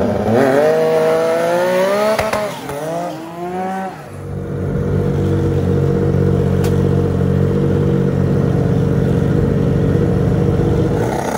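Turbocharged Pro Mod drag sled's engine revving up and down in quick swings for the first few seconds, then held at a steady high pitch for several seconds, with the revs rising again near the end.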